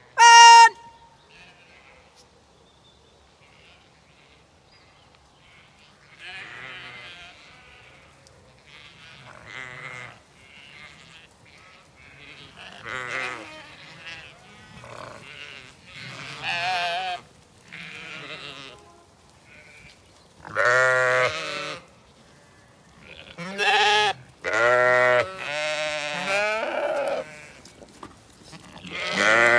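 Zwartbles ewes and lambs bleating: many wavering calls that come closer together and grow louder as the flock arrives, loudest in the last third. About half a second in, one short, loud, steady-pitched tone is the loudest sound.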